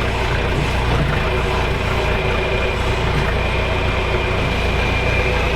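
Backhoe engine running steadily at an even pitch, with a faint high whine held over it.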